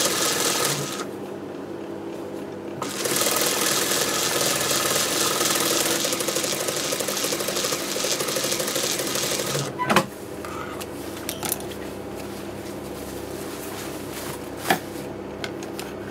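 Industrial sewing machine stitching a seam at speed. It pauses about a second in, runs again, then stops about ten seconds in with a sharp click, and a few quieter clicks follow.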